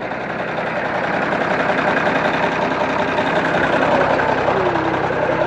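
John Deere 4630 tractor's six-cylinder diesel engine running steadily, growing gradually louder over the first few seconds.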